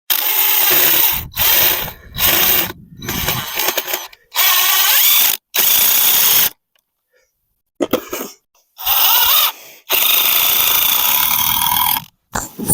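Power drill running in about ten short bursts, some with a rising whine as the motor spins up, as it drives fasteners during assembly work.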